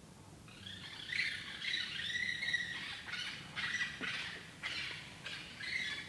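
Unidentified animals calling at night: a burst of high-pitched calls starts about half a second in, then breaks into short repeated calls, roughly two a second, near the end.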